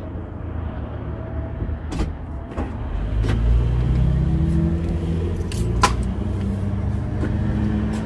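A vehicle engine running at a low idle, louder from about three seconds in, with several sharp clicks and a brief jingle of keys.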